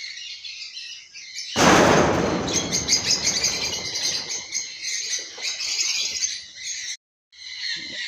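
A flock of African lovebirds chattering with dense, shrill chirps. About one and a half seconds in comes a sudden loud rush of wing flapping as birds take flight, fading over about a second, and the chirping breaks off briefly near the end.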